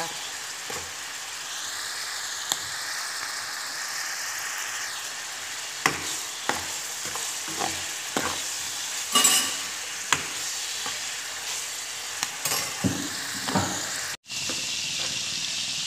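Pork and green chilies sizzling in hot oil in a wok, with a metal ladle scraping and knocking against the pan every so often as it is stirred. The sound cuts out for a moment near the end.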